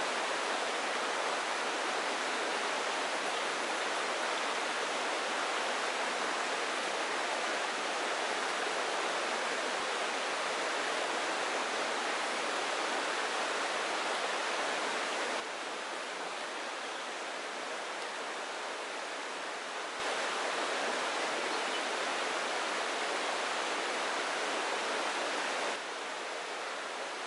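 A steady, even rushing hiss with no distinct events. Its level drops suddenly about fifteen seconds in, comes back about five seconds later, and drops again near the end.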